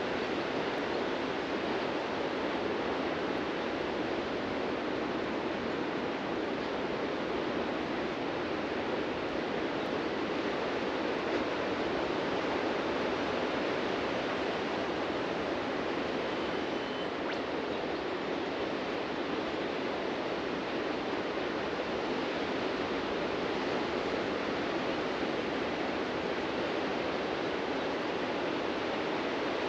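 Ocean surf breaking on a sandy beach, heard as a steady, unbroken wash with no single wave standing out.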